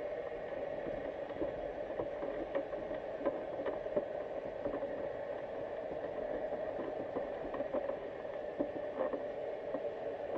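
Muffled underwater ambience heard through a GoPro's waterproof housing: a steady dull hum with faint, irregular clicks and ticks scattered through it.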